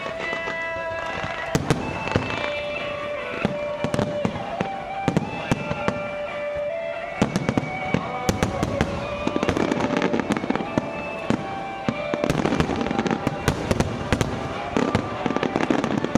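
Aerial fireworks going off in rapid bangs and crackles, growing denser about halfway through, with music playing underneath.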